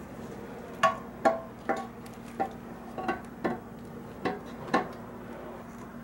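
About ten light, sharp clicks and taps at irregular spacing as a rubber Fel-Pro valve cover gasket is fitted to the Jeep 4.0 inline-six valve cover. A steady low hum runs underneath.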